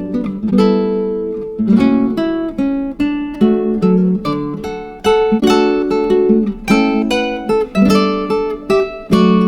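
Music played on an acoustic guitar, plucked and strummed chords in a steady rhythm.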